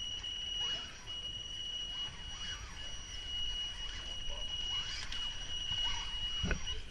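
RC rock crawler's electric motor and speed controller giving a steady high-pitched whine as the truck creeps up a wooden ramp, cutting out briefly a few times as the throttle eases, with a single knock of a tyre on the wood near the end.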